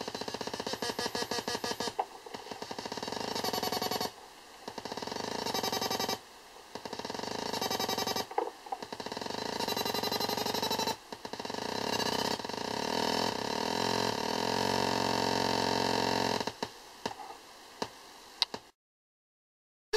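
Olegtron 4060 noise box, a CD4060 CMOS oscillator and divider, putting out harsh, buzzy square-wave tones that pulse rapidly and repeat in a cycle about every two seconds. The repeating sweep comes from a large capacitor patched between two divider outputs. The sound cuts off suddenly about a second before the end.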